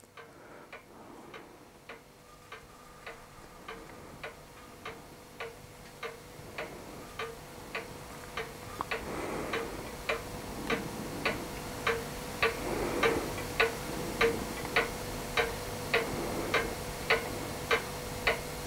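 Even, clock-like ticking, a little under two ticks a second, growing gradually louder, over a faint steady hum.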